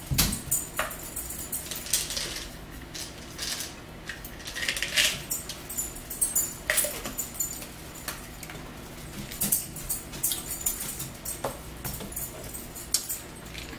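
Dinner-table handling noises: scattered clicks, clinks and rattles of a plastic seasoning bottle and its cap, forks and plates, coming in short irregular clusters.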